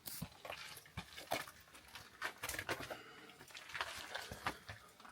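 Irregular scuffs, taps and knocks, several a second, from people clambering over rock in a cave passage.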